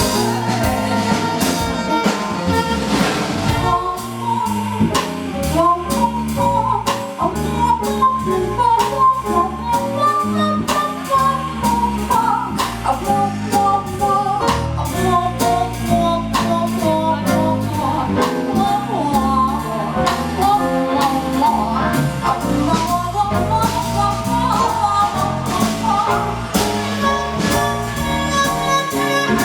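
Small jazz band playing an instrumental passage with a walking bass, drum kit and a melodic lead line, no lyrics sung.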